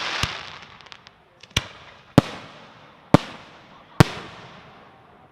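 Display fireworks going off: five sharp bangs spaced roughly a second apart, each trailing off in a fading hiss and crackle.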